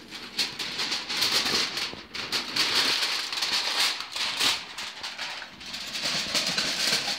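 Aluminium foil crinkling and rustling in irregular crackles as it is pulled off a roasting tray.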